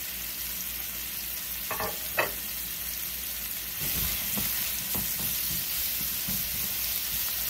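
Sliced mushrooms sizzling in hot oil in a nonstick skillet, with a steady hiss. It grows louder from about four seconds in as they are stirred, with light taps and scrapes of the utensil on the pan. Two short pitched sounds come about two seconds in.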